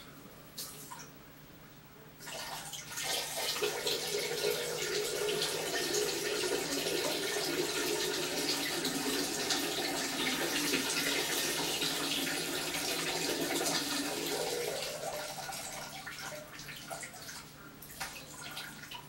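A steady stream of liquid splashing into a toilet bowl, a man urinating. It starts about two seconds in, runs for about twelve seconds, then tapers off. A few faint knocks come before and after.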